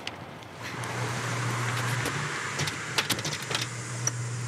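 A vehicle engine humming steadily, its noise swelling about a second in, with a few sharp clicks near the middle as the handle of a locked glass door is tried.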